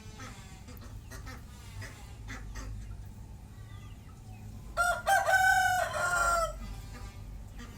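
A rooster crowing once, loud, about five seconds in and lasting under two seconds, with a brief break near its start. Fainter short calls come before it.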